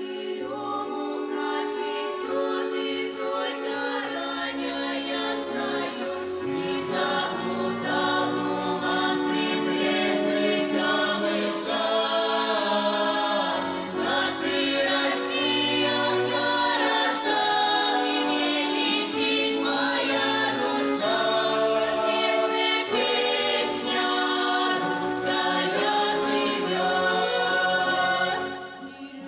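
A young folk vocal ensemble singing a Russian folk song together in several voices.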